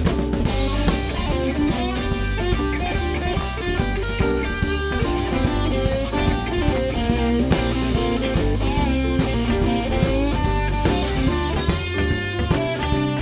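Live blues band playing an instrumental break in a shuffle rhythm: electric guitar lead over drum kit and bass guitar.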